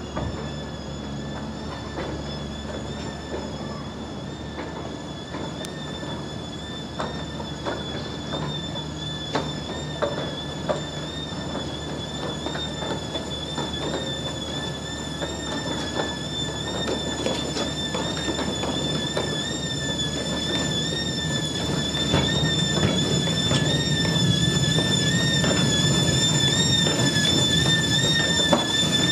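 Steam saddle-tank locomotive and its wagons rolling slowly over curved track, the wheels squealing with a high, wavering tone throughout, over a low rumble and scattered clanks. The squeal and rumble grow louder over the last several seconds as the train draws close.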